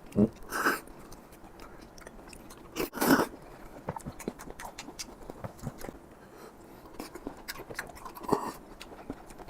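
Close-up chewing and biting of apple snail meat, with soft clicks throughout and louder noisy moments near the start, about three seconds in and just after eight seconds.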